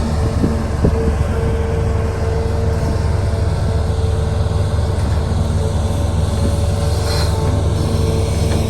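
Heavy diesel machinery engine running steadily, with a constant whine over the low drone and a few light knocks in the first second.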